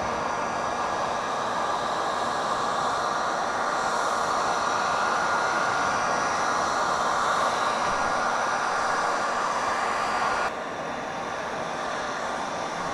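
Handheld Wagner heat gun running, its fan blowing a steady rush of hot air onto vinyl wrap film to set the edges. The level drops suddenly about ten seconds in.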